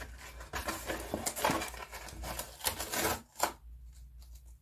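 Paper rustling and crinkling as a sheet is folded and pressed by hand around a cardboard strip, with sharp crackles throughout. It drops away after a last sharp rustle about three and a half seconds in.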